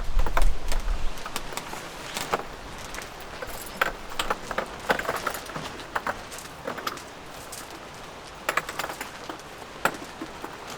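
Scattered light clinks and clatter of small hard objects being handled. In the first second there is a low rumble of wind on the microphone.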